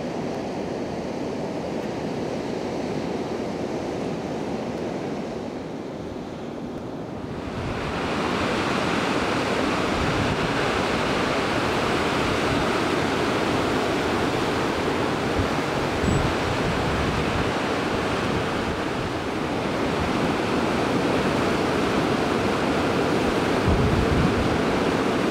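Ocean surf breaking and washing, a steady rushing noise with wind buffeting the microphone now and then. About seven seconds in it turns louder and brighter.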